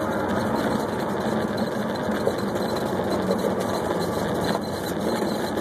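Light aircraft's piston engine running steadily, heard from inside the cockpit, with a steady hum and no change in power.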